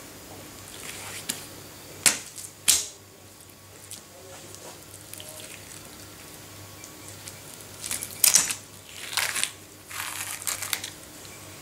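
Skin being torn off a witch flounder by hand, gripped with a cloth towel: two sharp rips about two seconds in, then a run of rasping tearing pulls in the second half.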